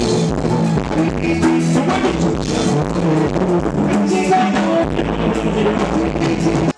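Live band music at full volume, with a drum kit and male vocalists singing into microphones.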